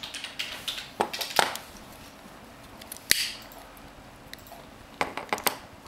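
Handling noise of small hard objects: a couple of sharp clicks and knocks about a second in, another near three seconds, and a quick cluster of taps near the end, with light rustling between, as a jade pendant and its cord are worked on a tabletop.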